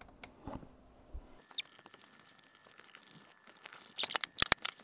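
Hard plastic parts of a Bambu AMS filament unit being handled: faint taps and clicks, then a quick run of sharp plastic clacks near the end.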